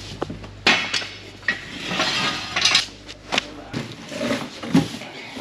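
Cardboard boxes of parts being handled and set down: a run of irregular clinks and knocks, with cardboard and paper rustling about two seconds in.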